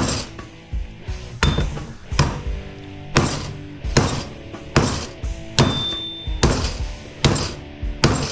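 Hammer blows driving a steel machete through the copper windings of an electric motor stator: about ten strikes in a steady rhythm, a little under one a second, each with a metallic ring.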